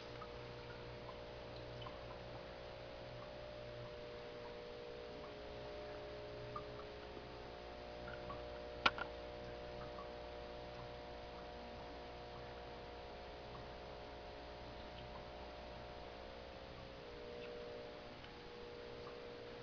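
Faint steady hum of aquarium equipment, with scattered faint ticks and drips of water, and one sharp click about nine seconds in.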